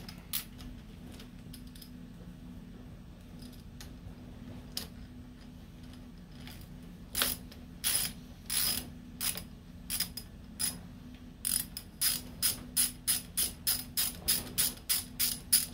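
Ratchet wrench with a 10 mm socket clicking as it loosens the bolt of a motorcycle clutch lever bracket. A few scattered clicks come first, then an even run of about three clicks a second in the last few seconds.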